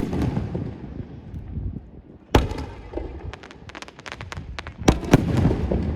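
Aerial firework shells bursting. There is a sharp bang about two and a half seconds in, followed by a quick run of crackling pops, then two more bangs close together near the end. A low rumble lingers after each bang.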